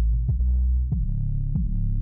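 Electronic music with a deep, heavy bass and a steady beat, a little under two beats a second.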